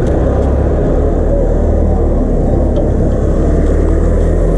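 Wind rumbling over the microphone of a bike-mounted action camera while riding, a loud, steady low rumble with road and traffic noise underneath.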